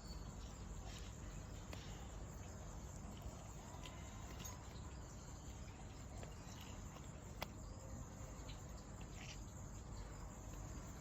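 Faint steady background with scattered short, high chirps and one sharp click about seven seconds in.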